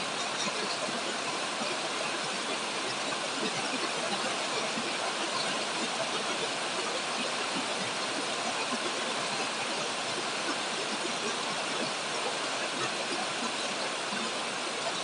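Heavy rain falling steadily on grapevine leaves overhead, an even hiss of countless drops.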